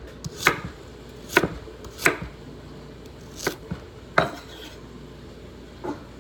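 Kitchen knife chopping vegetables on a cutting board: about six single, sharp knocks at uneven spacing.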